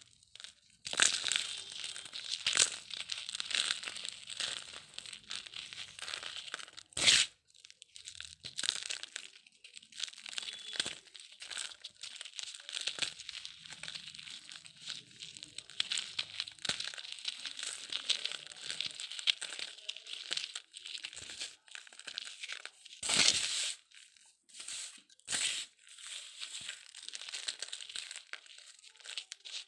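Lumps of dried cement being crumbled, with a dense, continuous crunching and crackling. There are a few louder sharp snaps, about a quarter of the way in and twice more near the end.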